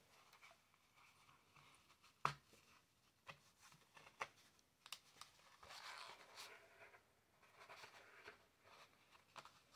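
Faint rustling of a darning needle and mohair-silk yarn being worked and drawn through thick fine art paper, with a sharp tick a little over two seconds in and a few softer ticks after.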